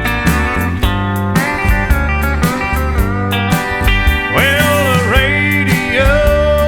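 Background country music with guitar, loud and steady, with sliding notes from about the middle on.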